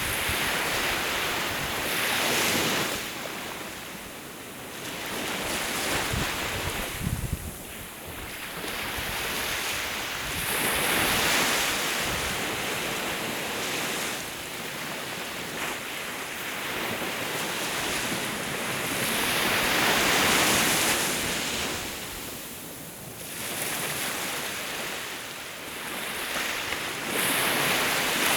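Sea waves washing onto the shore, the hiss swelling and falling back every few seconds. Wind rumbles on the microphone now and then.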